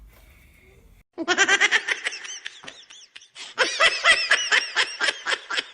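Young girls laughing hard in two bouts of quick, high-pitched, pulsing laughter, the first starting about a second in and the second starting halfway through.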